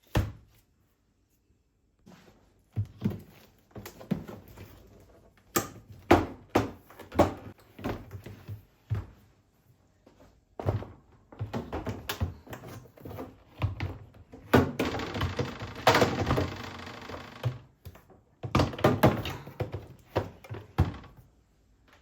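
A run of knocks and thuds as objects are handled and set down, with a noisy stretch of about three seconds in the middle.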